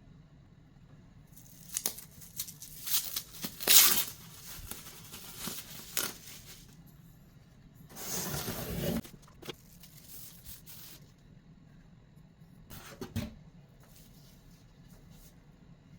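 Packaging being handled and torn open: a run of short rustles and tears in the first few seconds, one longer tear lasting about a second about eight seconds in, and a brief rustle near thirteen seconds.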